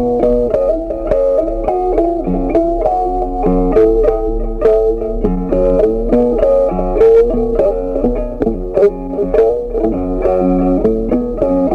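Background music: a plucked guitar tune with a bass line and a steady rhythm.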